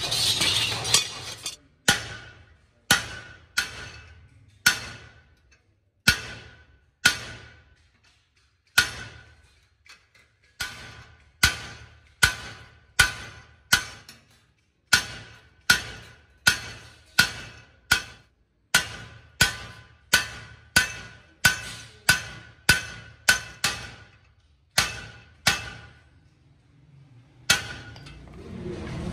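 Hammer blows on a hand punch die stamping a pattern into stainless steel sheet: dozens of sharp metallic strikes, one or two a second in short runs with pauses, each with a brief ring. A short rasp of metal being worked comes before the first blows.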